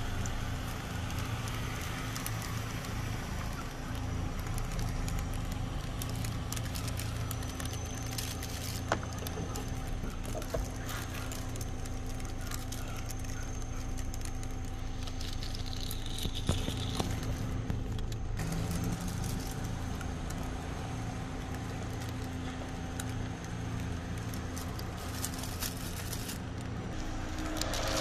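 Steady low hum of a car idling, heard from inside the cabin, with scattered small clicks and crackles over it.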